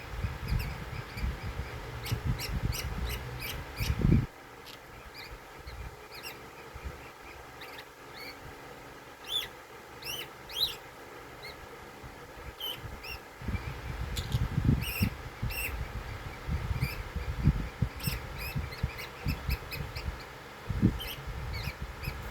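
A lovebird making short, high chirps and squeaks at scattered moments while asleep, over a low, uneven rumble that comes and goes, strongest in the first few seconds and again in the second half.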